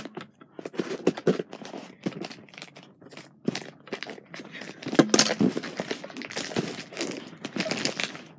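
Scissors snipping through a plastic mailing bag, the plastic crinkling and rustling in short irregular snips, with a louder, longer rustle about five seconds in.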